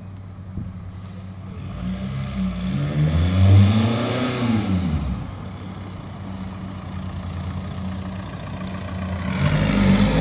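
VW Caddy SDI van's diesel engine through a custom stainless steel performance exhaust, driving toward the listener: it revs up to a peak and eases off, runs steadily for a few seconds, then revs up again near the end as the van comes close.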